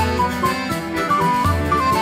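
Instrumental background music: a stepping melody over a repeating bass line.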